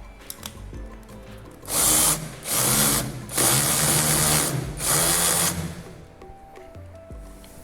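Cordless drill driving screws, run in four short bursts between about two and five and a half seconds in, fixing a power socket's faceplate screws.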